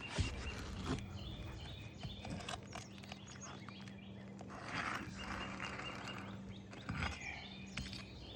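Scattered clicks, taps and scraping of a metal pry tool (roof snake) working under asphalt shingles to loosen a tab and lift its nails, with a steady low hum underneath.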